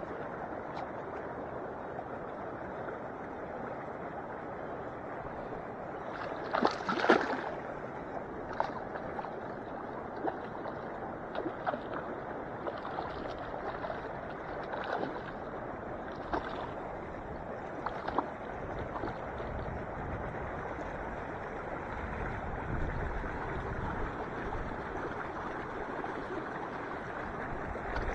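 Lake water lapping and sloshing at the shallow shoreline as a steady wash. About seven seconds in there is a louder burst of splashing, with a few smaller splashes and knocks after it.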